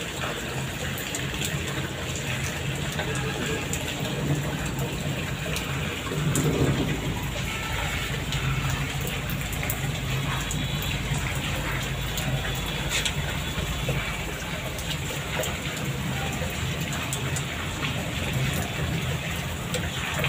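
Heavy rain falling, a steady hiss with the close patter of drops striking surfaces; a louder low swell about six seconds in.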